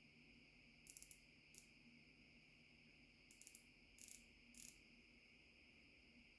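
Near silence with a steady faint high hiss, and a handful of short, light clicks at about 1, 1.5, 3.5, 4 and 4.5 seconds in, as from small parts or measuring tools being handled.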